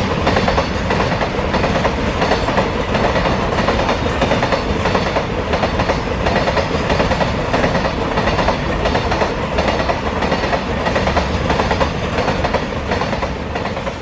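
Container freight train wagons rolling past, a steady loud rumble with a rapid clickety-clack of wheels over the rail joints.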